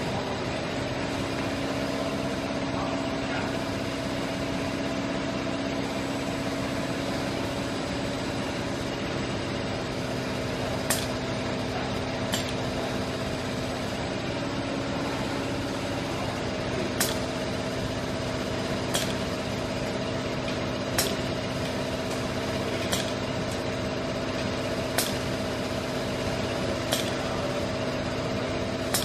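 SCARA soldering robot running: a steady machine hum with a few constant tones. From about a third of the way in, short sharp clicks come roughly every two seconds.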